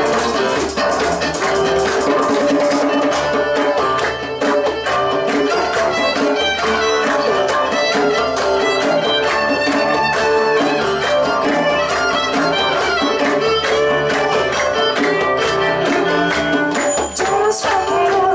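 Live folk band playing an instrumental passage: a bowed fiddle carries the tune over strummed acoustic guitar, cello and a hand-played djembe with drum kit.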